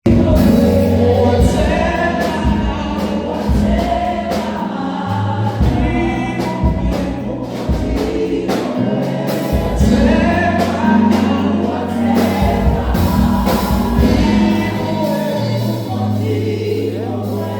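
Gospel choir singing live, with band backing of steady low bass notes and drum beats under the voices.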